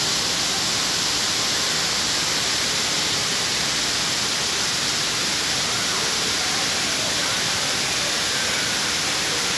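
Indoor fountain's curtain of falling water streams, making a steady, even hiss.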